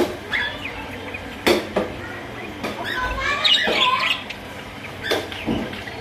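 Budgerigars chattering and warbling in short rising and falling chirps, busiest a little past the middle, with a few sharp clicks in between.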